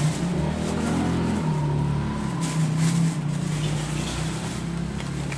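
An engine running steadily, with a low hum that shifts a little in pitch in the first second or so and then holds.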